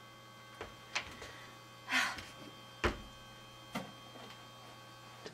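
A few sharp computer mouse clicks, spaced irregularly, over a faint steady electrical hum, with a short swish about two seconds in.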